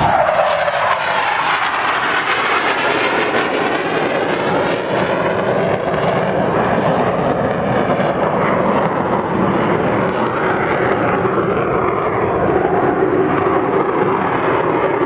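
BAE Hawk T2 jet trainers flying past, their jet engine noise loud and continuous. The pitch falls over the first second as one goes by, then the rushing noise sweeps slowly in tone.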